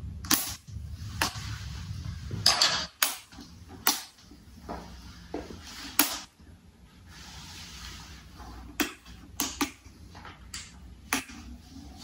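About a dozen sharp, irregular plastic clicks and knocks from the plastic parts of a Cadence desk fan being handled, over a low hum.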